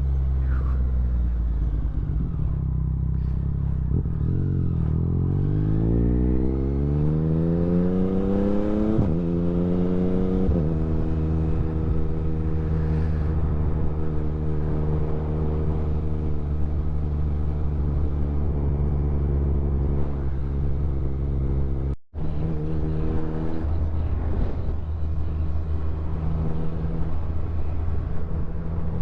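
Motorcycle engine heard from the rider's position, pulling up through the revs for about six seconds, then cruising at a steady note. The sound cuts out for an instant about two-thirds of the way through.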